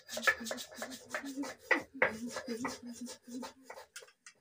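Stone roller rasping back and forth on a flat grinding stone (Nepali silauto-lohoro), grinding red chillies in quick strokes, several a second, that thin out near the end.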